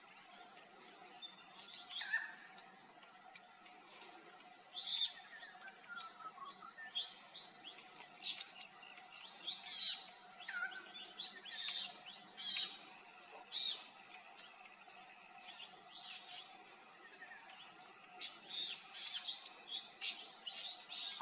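Wild birds chirping and calling: clusters of short, sharp high notes with a few falling whistles, over a faint steady hum.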